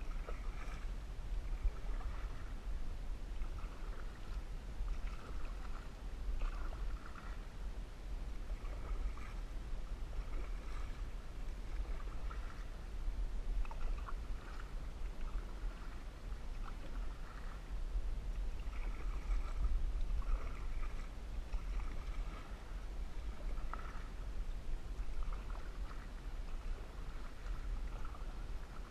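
Canoe paddle strokes in lake water, a splash and drip about once a second, over a steady low rumble.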